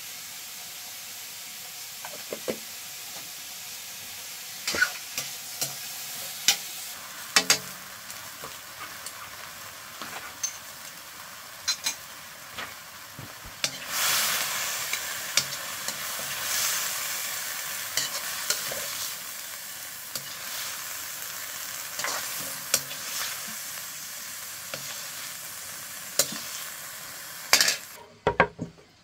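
Food frying in a pan: a steady sizzle that grows louder about halfway through, with a utensil knocking and scraping against the pan now and then. The sizzle drops away just before the end.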